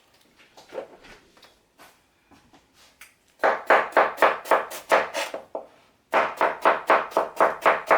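Chef's knife shaving a cabbage thin on a cutting board for coleslaw: a few soft cuts, then two quick runs of knife strokes at about four a second, the first starting about three and a half seconds in and the second about six seconds in after a short pause.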